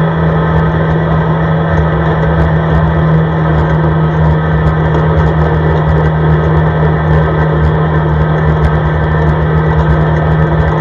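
CFMoto ATV engine running at a steady cruise along a snow-covered road: a constant drone with one steady low hum under it.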